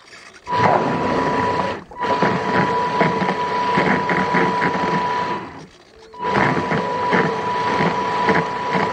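An RC tug boat's small electric drive motor runs with a steady high whine and a rapid rattle. It cuts out briefly about two seconds in and again for about half a second around six seconds, then picks up again.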